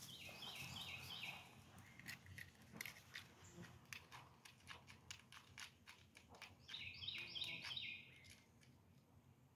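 Faint outdoor sound: a bird sings a short phrase of about four quick repeated slurred notes, once at the start and again near the end. In between come light crackling, crunching steps through grass and leaves.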